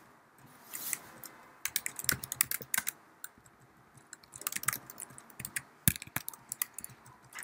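Keystrokes on a computer keyboard: short irregular runs of typing separated by pauses, with one sharper key strike about six seconds in.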